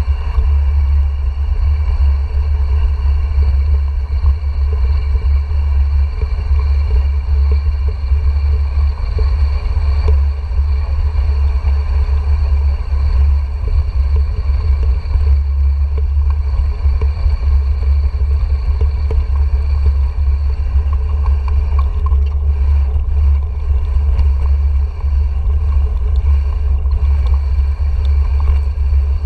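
Mountain bike rolling down stone paving, heard through a GoPro Hero 4 on the bike: a loud, steady low rumble of wind buffeting the camera's microphone, mixed with tyre noise.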